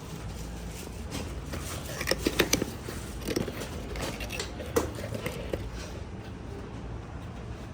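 Packaging being handled as a tail light is unboxed: scattered crinkles and clicks, clustered about two seconds in and again around five seconds.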